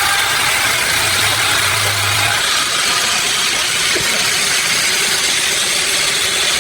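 Sawmill machinery running steadily: a dense, even mechanical din with a steady whine, and a low hum that drops out about two and a half seconds in.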